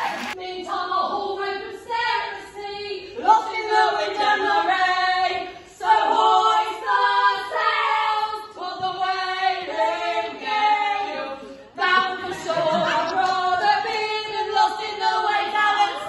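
A choir singing: several voices together in sung phrases, with no clear instruments.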